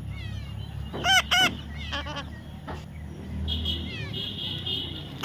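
A parrot calling: two loud, harsh squawks close together about a second in, with softer chirps around them and a longer, steady high call a little past the middle.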